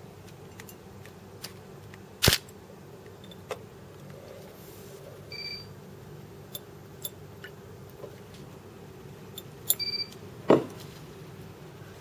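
Scattered light clicks and taps of glassware being handled on a lab bench, as an eyedropper and a small glass graduated cylinder are used: a sharp click about two seconds in and a duller knock near the end. Two short electronic beeps sound, about five and ten seconds in.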